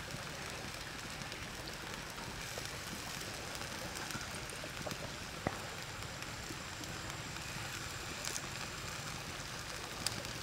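Shrimp sizzling on a hot stone slab over a wood fire: a steady hiss, with a few sharp crackles from the fire.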